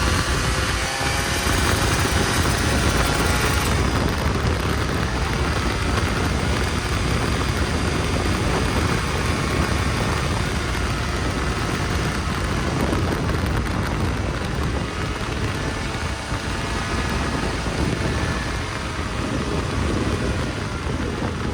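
Snowmobile engine running steadily while riding, its pitch wavering slightly, over a dense low rumble.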